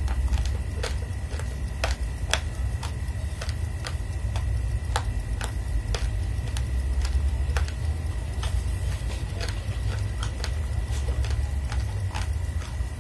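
Raw red rice being chewed: hard dry grains crunching and cracking in irregular sharp clicks, a few a second, over a steady low hum.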